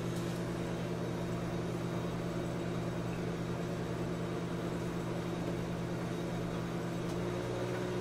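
A 1987 GE SpaceMaker II microwave oven running, with a steady electrical hum from its transformer and fan.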